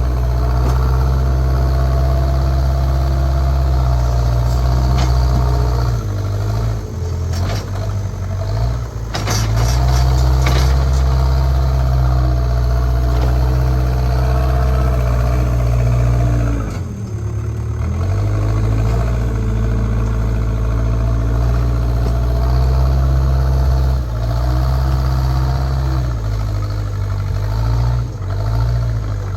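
JCB backhoe loader's diesel engine running steadily under changing load, its note dipping and recovering a few times. A short run of sharp clatters about ten seconds in.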